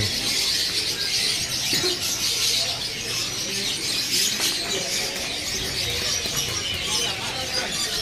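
Many caged songbirds chirping and singing at once, a steady dense chatter of overlapping high calls.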